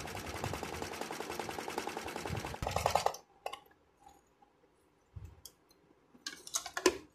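Janome Secio 8200 sewing machine stitching at a fast, even rhythm during free-hand embroidery, stopping abruptly about three seconds in. Scattered light clicks and knocks follow as the embroidery hoop and cloth are shifted.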